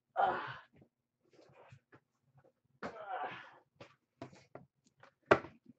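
A man's effortful, breathy grunts as he gets down on his knees to the floor, one right at the start and another about three seconds in, with a few light knocks and clicks between them and a sharper click about five seconds in.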